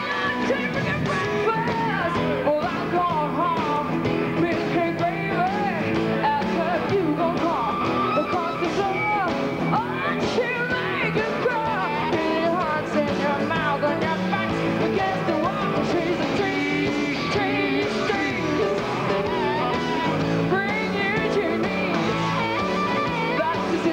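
Rock band playing live, with a lead line sliding up and down in pitch over guitar and rhythm section.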